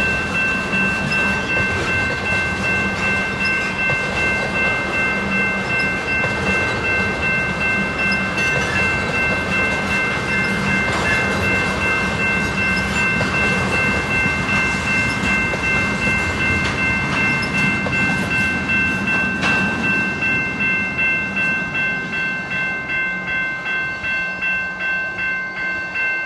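A freight train of tank cars rolling past, with wheel rumble and clatter over the rail joints, under the steady ringing of a level-crossing warning bell. The train noise eases near the end while the bell keeps ringing.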